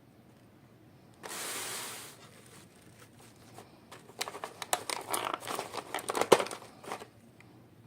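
A brief tearing rip about a second in, then about three seconds of dense crinkling and crackling of plastic toy packaging being handled and opened.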